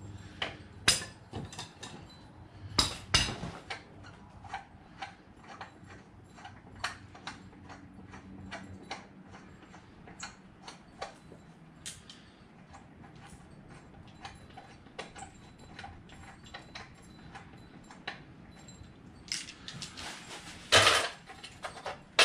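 Irregular metal clicks and clinks of hand tools working at an ATV's rear wheel hub, a few a second, with a louder metal clatter near the end around the floor jack.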